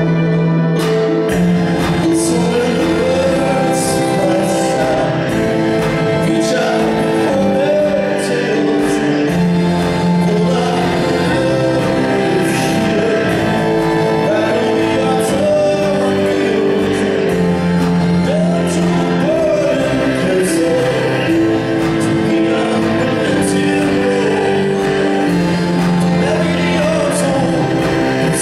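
A live song with held keyboard chords and a violin playing gliding lines over them, with a male voice singing.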